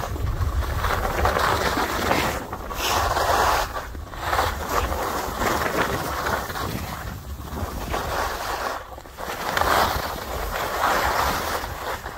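Skis hissing over snow and wind rushing across the microphone during a downhill run, with a steady low rumble of wind buffeting. The hiss swells and fades every second or two, in time with the turns.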